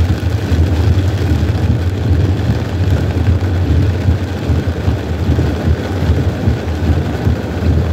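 Steady noise inside a car's cabin driving in heavy rain: rain hitting the roof and windshield and tyres hissing on the wet road over a constant low rumble, with the windshield wipers running.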